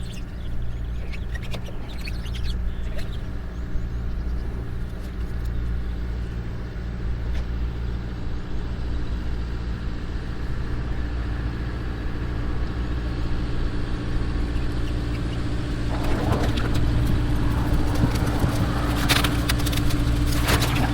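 A motor vehicle engine idling steadily with a low hum. It grows a little louder about two-thirds of the way through, and a few clicks and knocks come near the end.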